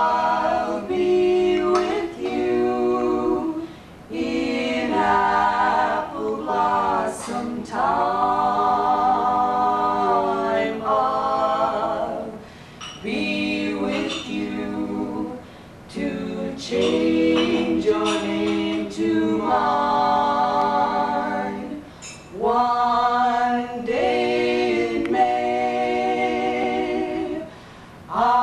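A female vocal trio singing a cappella: several voices together in phrases of long held notes, separated by short breaks for breath.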